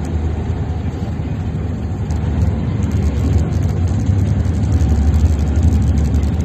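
A tugboat's engines running with a steady low rumble that grows a little louder partway through.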